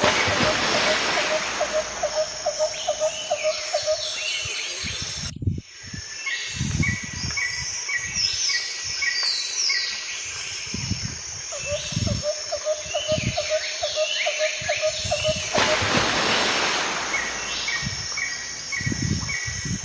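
Outdoor ambience of birds calling, with repeated short chirps and a fast pulsing call series, over a bed of hiss and low rumble. The sound briefly drops out about five and a half seconds in.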